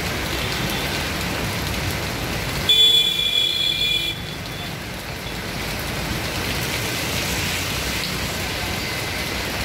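Steady wash of rain and floodwater with traffic on a waterlogged street. About three seconds in, a vehicle horn sounds for just over a second, the loudest thing here.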